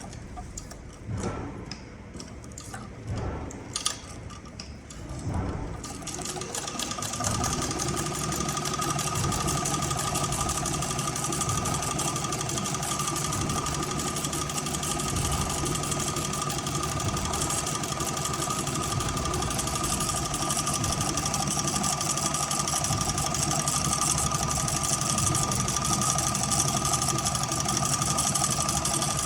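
CowBoy CB6900 heavy cylinder-arm leather sewing machine: a few scattered knocks, then from about six seconds in the machine runs steadily with a constant whine.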